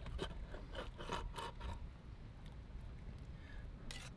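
Knife cutting through grilled octopus onto a wooden cutting board: faint scrapes and light taps of the blade against the wood, a run of them in the first two seconds and again near the end.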